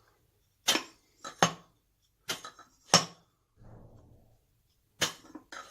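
Small metal parts of an SU carburettor being handled on the bench: a series of about seven sharp metallic clicks and clinks, spread out, as the jet is refitted and the piston checked.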